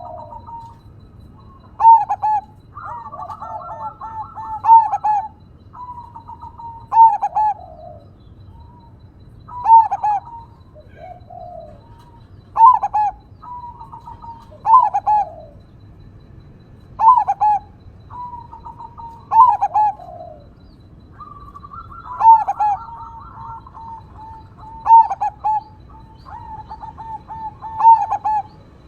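Crossbred zebra dove (perkutut) cooing over and over: a loud stuttering coo phrase about every two and a half seconds, with softer rolling trills between.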